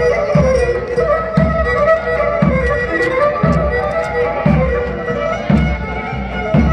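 Greek folk dance music: a fiddle playing the melody over a low beat that falls about once a second.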